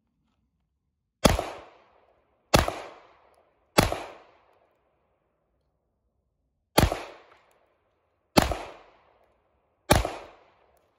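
Six shots from a Glock 34 Gen5 9mm pistol: three about a second apart, a pause of roughly three seconds, then three more. Each shot trails off in a short echo.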